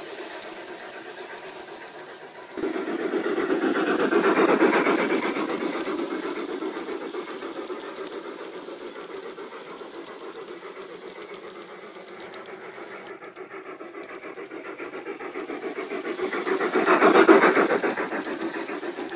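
Large-scale model passenger train rolling past on outdoor garden-railway track: a steady, rapid clatter of metal wheels on the rails. It jumps up sharply about two and a half seconds in and swells twice, about four seconds in and again near the end, as cars pass closest.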